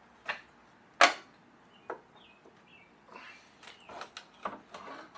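Knocks and clunks of a Jeep Wrangler JK's Rubicon rock slider being pulled free by hand once its nuts and bolts are out. Three separate sharp knocks come first, the loudest about a second in, followed near the end by a run of quicker clicks and scraping as it comes away.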